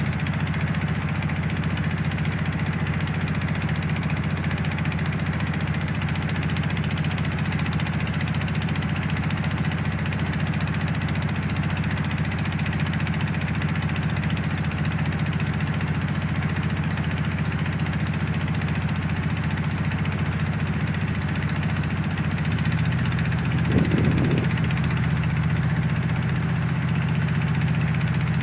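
A river car ferry's engine running steadily with a low hum. About 23 seconds in its note shifts, with a brief louder surge, as if the throttle changed.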